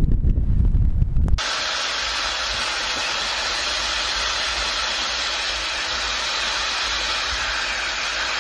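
Wind buffeting the microphone, cut off suddenly about a second and a half in; then a pot of meat at a boil, a steady hiss of bubbling water and steam.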